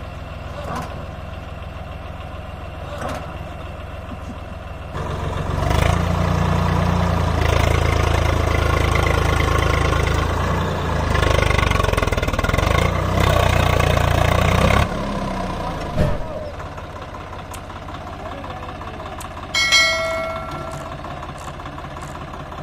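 Tractor diesel engine idling, then revved hard under load for about ten seconds while pulling at a mired, loaded tractor, before dropping back to idle. A sharp knock follows, and a short ringing tone sounds near the end.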